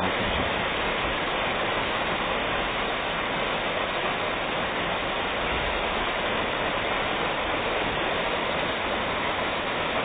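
Flowing river water rushing steadily, an even hiss with no breaks.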